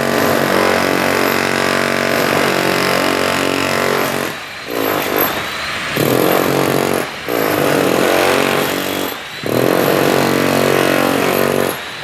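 Power drill motor running with a steady, pitched whine. From about four seconds in it briefly drops off and picks up again several times, its pitch sliding as it does.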